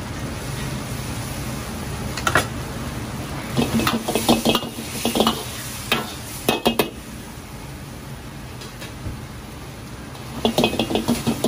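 Metal ladle clinking and scraping against an iron wok as braised chicken wings are stirred in a reducing sauce, in bursts: once a couple of seconds in, through the middle, and again near the end. Underneath runs a steady hiss from the wok burner and the bubbling sauce.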